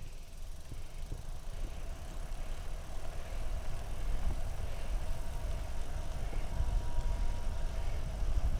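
Greenspeed Magnum recumbent trike rolling along a road: low wind rumble on the microphone with tyre noise and a steady hum that gets a little louder about three seconds in.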